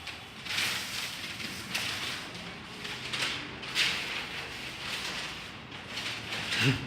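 Alexandrine parakeet biting at a lemon: irregular short scratchy crunches every second or so, with a brief low sound near the end that is the loudest moment.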